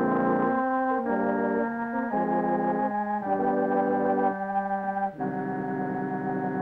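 Organ music: held chords that change about once a second in a slow melody.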